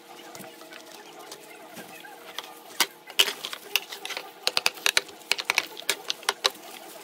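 Sharp crackling and clicking of a plastic-gloved hand tearing apart a ripe jackfruit, the sticky fibres and crinkling glove giving quick irregular snaps, dense from about three seconds in.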